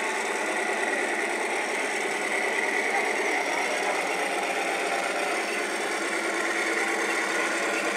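Radio-controlled model Sherman tank driving slowly: a steady, even mechanical running sound of its motors and engine-sound unit, without change in pace.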